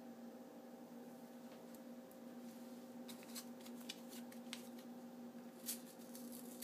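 Faint, scattered clicks and taps of objects being handled, thickening from about halfway through, with one sharper click near the end, over a steady low electrical hum.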